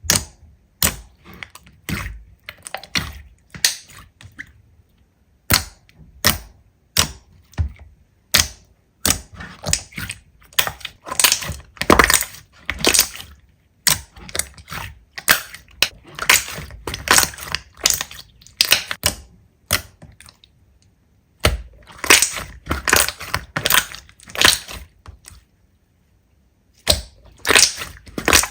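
Slime being squeezed and pressed by hand, giving irregular runs of sharp pops and crackles with short pauses between them.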